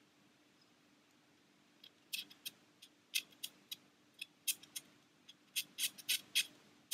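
Small, sharp ticks of a wooden cocktail stick scraping and catching on a clear plastic model canopy as paint is rubbed off along its frame lines. About fifteen irregular ticks, starting about two seconds in.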